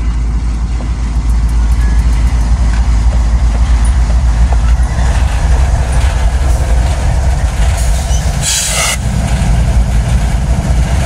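Norfolk Southern diesel-electric locomotives passing close by, engines running with a steady heavy rumble and wheels rolling on the rails. About eight and a half seconds in there is a short, loud burst of hiss.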